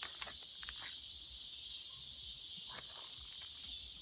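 Steady high-pitched insect chorus, with a few faint clicks and rustles scattered through it.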